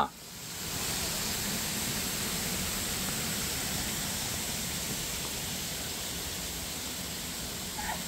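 Water falling over a landscaped waterfall into a pond: a steady, even splashing hiss that fades in over the first second.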